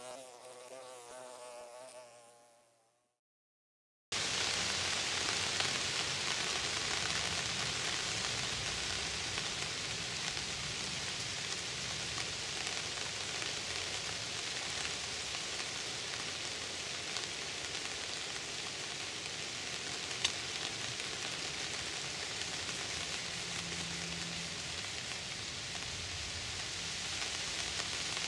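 A short musical jingle fades out, then after a second of silence steady rain falls on woodland foliage, an even hiss with one small click partway through.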